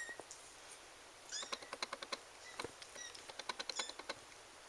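Four-week-old Ragdoll kittens giving a few faint, short, high-pitched mews, among irregular runs of small sharp clicks.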